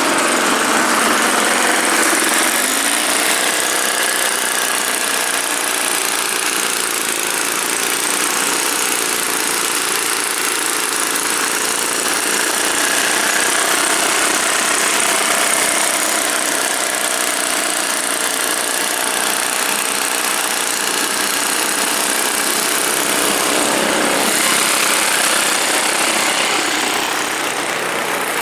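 Two-stroke engine of a Druzhba chainsaw, driving a homemade snowblower, running steadily.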